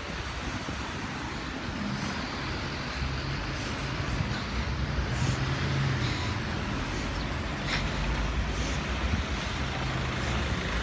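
Street traffic noise: a steady wash of passing vehicles, with a low engine hum swelling twice, around the middle and again near the end.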